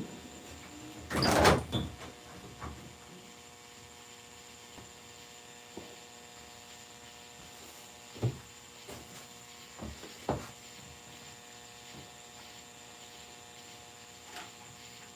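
A loud, noisy knock or scrape about a second in, then two sharper knocks later, over a steady faint background hum.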